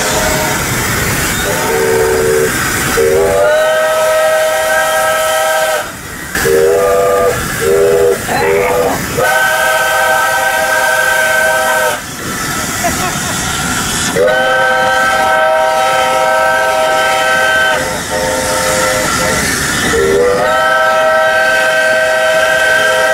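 Steam whistle of a Soviet Л-class steam locomotive, worked by hand from the cab in a run of long blasts and short toots, each blast sliding up in pitch as the valve opens, with steam hissing.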